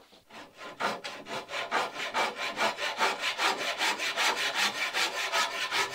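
Hand saw cutting through wood with fast, even back-and-forth strokes, starting about a second in.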